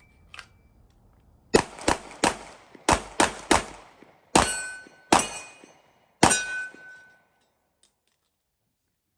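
A rapid string of gunshots, about nine in under five seconds, fired at steel targets. The last few hits leave the plates ringing.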